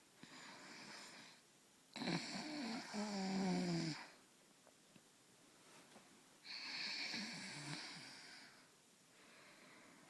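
A person snoring in slow breathing cycles: a loud, pitched snore about two seconds in and another a little past the middle, with quieter breaths between.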